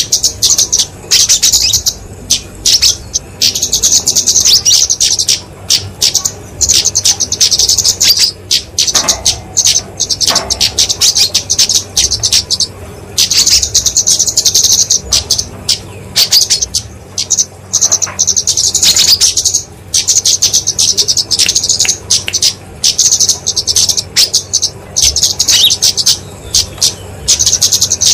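Flowerpecker (kemade, genus Dicaeum) giving loud, rapid, high-pitched chipping calls in bursts of about a second with short breaks between. This is its agitated fighting call, the kind used as a lure for small birds.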